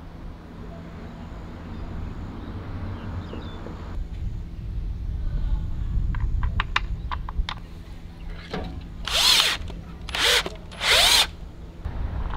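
A cordless drill-driver runs in three short bursts of about half a second to a second each, driving wall screws through a plastic mounting bracket. A few light clicks from handling the bracket come before the bursts.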